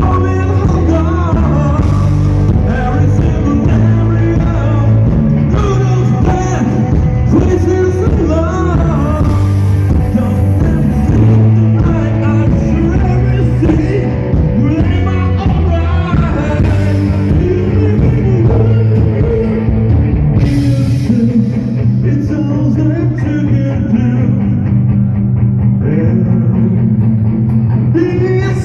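Rock music with a singing voice over sustained bass notes.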